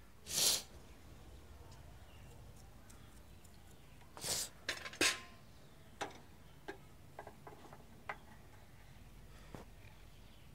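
Pliers and hands working the ignition wiring inside an auto-ignition gas stove: a few brief scrapes and rustles, then a scatter of light clicks.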